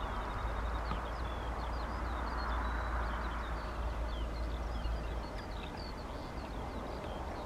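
Small birds chirping in quick high notes over the steady rushing of a Boeing 737's jet engines as it rolls down the runway. A low rumble underneath drops away about five seconds in.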